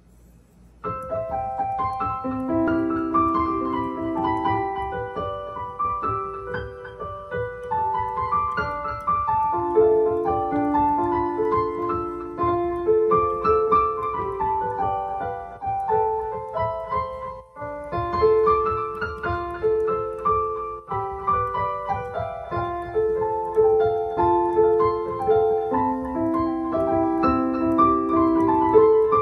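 Digital keyboard played with a piano sound, a flowing melody over held chords, starting about a second in.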